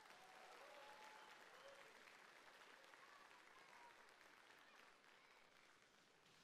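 Faint audience applause, slowly dying away.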